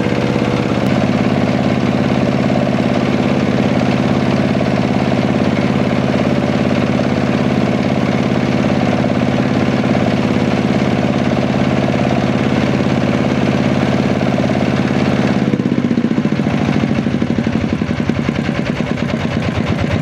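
A small boat's engine runs steadily under way. About three-quarters of the way through it throttles back, and its note drops to a lower, slower pulsing.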